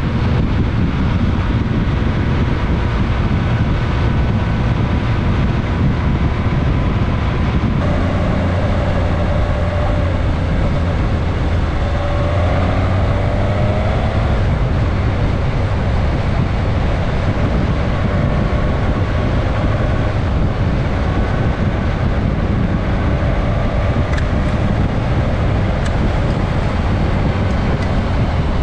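Suzuki GSX-S 1000S Katana motorcycle riding along with its inline-four engine running steadily under road and wind noise, heard from the bike's onboard camera.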